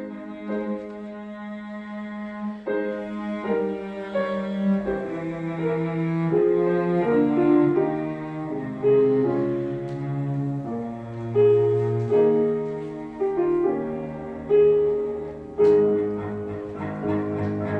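Music with piano and held, slowly moving melody notes, with several sudden loud chords.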